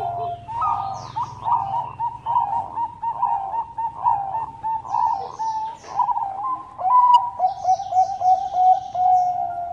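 Bangkok-type perkutut (zebra dove) cooing in phrases of quick, staccato coo notes, some ending in a longer drawn-out coo. Higher chirping from small birds runs over it at times.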